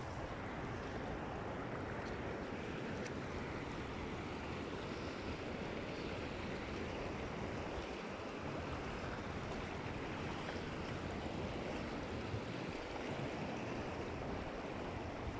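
River water flowing over and around rocks at the shore, a steady rushing noise.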